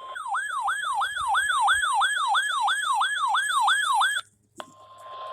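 Electronic siren-like alert tone wailing, each sweep falling in pitch, about three sweeps a second, cutting off suddenly about four seconds in. After a short gap, the steady 1050 Hz NOAA Weather Radio warning alarm tone starts over radio hiss.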